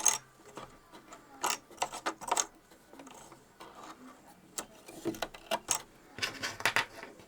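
Irregular light clicks and clacks from a Brother A150 sewing machine's mechanism and small parts being worked by hand, in short clusters, the densest near the end.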